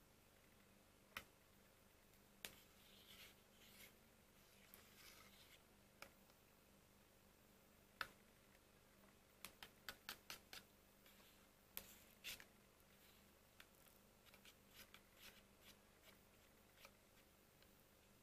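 Faint scrapes and scattered light clicks of a metal spoon stirring a creamy dessert in a plastic cup, with a quick run of clicks about ten seconds in.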